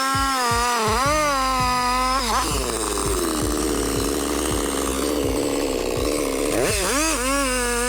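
Gas chainsaw running at high revs, its pitch wavering. About two seconds in the pitch drops and the sound turns rougher as the chain cuts into a log, and it rises again near the end as the saw comes free.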